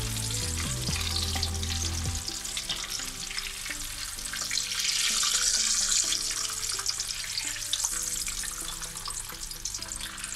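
Breaded barracuda fillets deep-frying in hot sunflower oil: a steady crackling sizzle that swells about halfway through while the pieces are lifted out of the pan.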